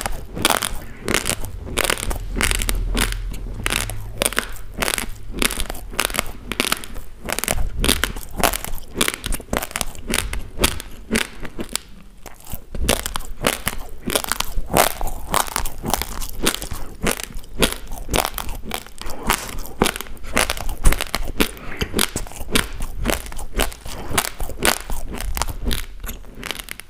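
Raw basmati rice grains being chewed right at a clip-on microphone: a fast, continuous run of sharp, gritty crunches, several a second, with hardly a break.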